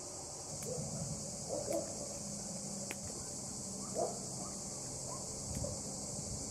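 Steady high-pitched insect chorus, with a few brief soft sounds about a second and a half in and again at four seconds.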